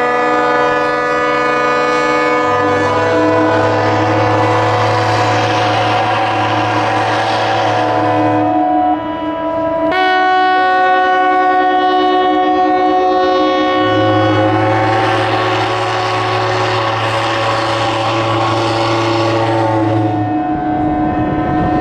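Many ships' horns and whistles sounding together in long, overlapping blasts: a harbour horn concert saluting a newly christened cruise ship. A deep horn joins in two long blasts of about six seconds each, over higher horns held throughout.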